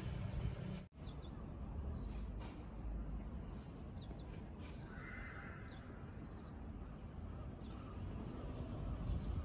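Steady low outdoor rumble with small birds chirping in short, high notes; a brief hiss comes about five seconds in. The sound cuts out for an instant about a second in.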